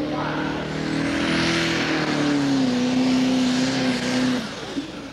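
Turbocharged diesel engine of a Pro Stock pulling tractor running at full load while dragging a weight-transfer sled, with a high whine over the engine note. The note sags partway through and drops away near the end.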